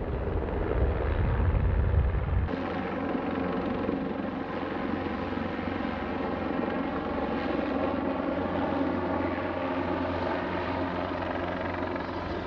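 Large helicopter in flight, its rotor and engines giving a steady drone. A deep low rumble in the first two and a half seconds cuts off abruptly, leaving a thinner, even drone.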